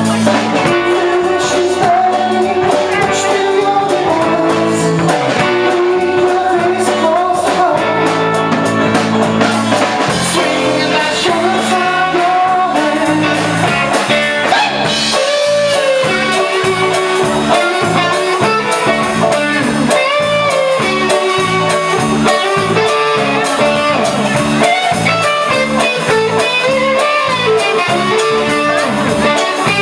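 A live band playing a song: banjo, electric guitar and drum kit keeping a steady beat, with a wavering melodic lead line over them.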